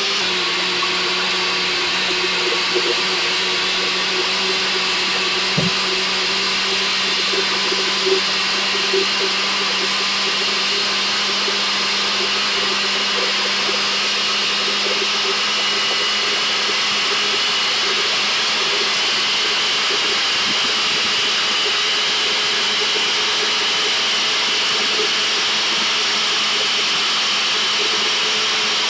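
NutriBullet personal blender motor running steadily at a constant pitch, blending a smoothie.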